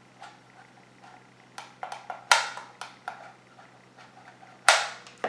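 A string of sharp clicks and knocks from a plastic remote-control toy helicopter and its controller being handled, the two loudest a little over two seconds in and near the end.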